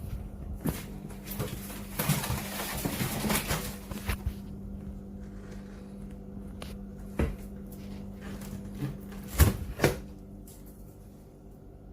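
A steady low hum that fades out near the end, with a few sharp knocks and a stretch of rustling about two to four seconds in, like objects being handled.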